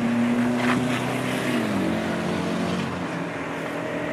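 A motor vehicle's engine running close by, a steady hum whose pitch slides down about a second and a half in.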